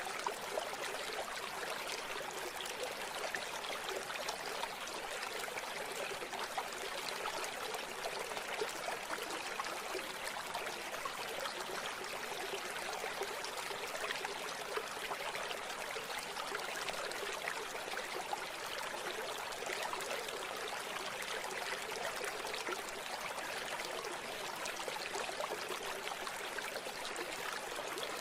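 A river or stream flowing and babbling steadily, a constant rush of water with no low rumble.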